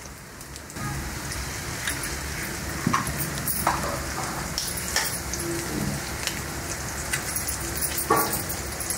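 Oil and masala frying on a hot flat tawa, sizzling and crackling steadily as two eggs are cracked into it. A few sharp taps stand out, the eggshells knocked open.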